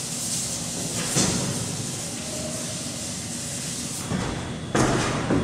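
A board eraser rubbing across a chalkboard: a steady scrubbing hiss, briefly louder near the end.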